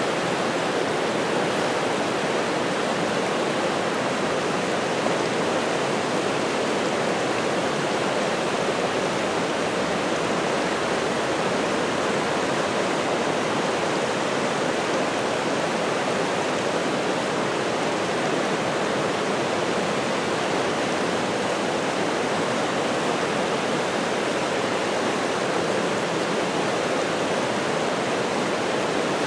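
A brook in full flood, swollen by a thaw and heavy rain, rushing through rapids in a steady, unbroken wash of whitewater.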